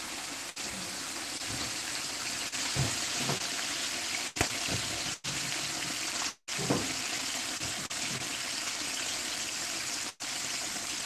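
Breaded chicken deep-frying in a pan of hot oil, giving a steady sizzle that drops out briefly a few times.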